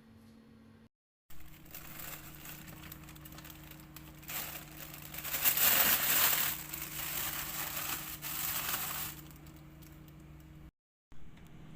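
Crinkling, rustling handling noise, loudest for a few seconds in the middle, over a steady low hum.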